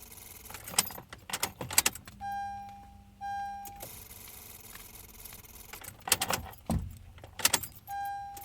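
Car keys jangling and clicking in two bursts, with three short electronic beeps of one steady pitch in between: two in quick succession about two seconds in and one near the end.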